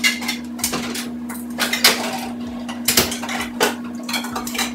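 Dishes and metal utensils clattering, a string of irregular clinks and knocks, over a steady hum.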